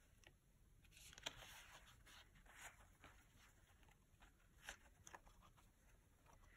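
Near silence with faint rustling and a few light clicks of cardstock being handled while brass paper fasteners are pushed through to attach a paper frog's front legs.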